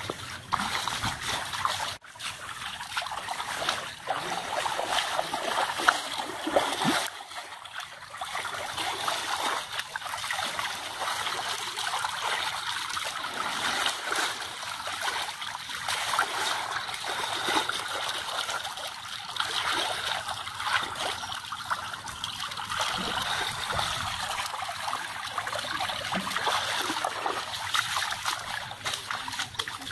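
Running water trickling and splashing steadily, with a few sharper splashes.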